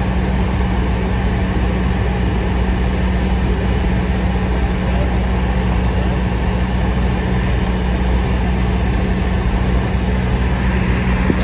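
Single-engine Cessna's piston engine and propeller running steadily in flight, a constant low drone with wind rush as heard inside the cabin.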